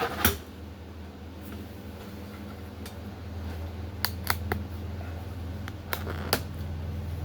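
A steady low hum with a handful of short, sharp clicks and taps over it, two of them coming in quick pairs about four and six seconds in.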